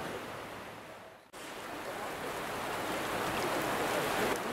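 Steady rushing of a swollen, muddy river in flood. About a second in the sound fades out and comes back abruptly, as at an edit, then grows a little louder.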